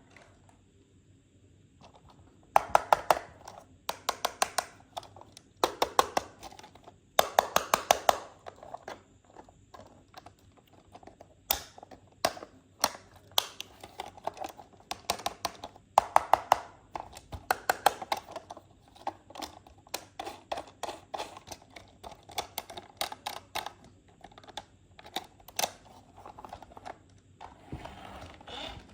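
Toy cars and their plastic packaging being handled, in bursts of rapid plastic clicking and rattling, each about a second long. Near the end comes a rustling, crinkling sound.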